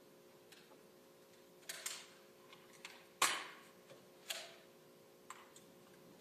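Air rifles firing: several sharp pops with short decays, a pair just under two seconds in and the loudest a little after three seconds, more at about four and five seconds, with small clicks between. A faint steady hum runs underneath.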